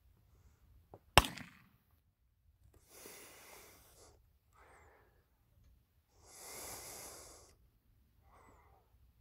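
A single shot from an AR-15 rifle chambered in .223 Remington about a second in, a sharp loud crack that dies away quickly. Later come two long, hissing breaths a few seconds apart, with fainter ones between.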